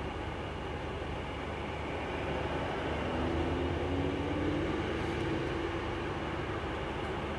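Audi R8 sports car driving past and accelerating away, its engine note rising in pitch about three seconds in and then fading, heard from inside another car whose engine idles steadily.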